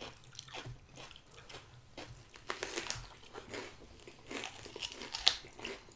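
Crisp crunching of a crunchy chatpate snack, a run of irregular dry crackles close to the microphone.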